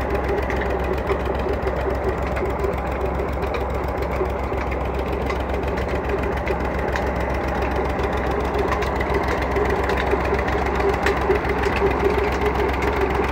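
Massey Ferguson 135 tractor engine running steadily under load, driving a tubewell pump through its PTO shaft, growing a little louder near the end.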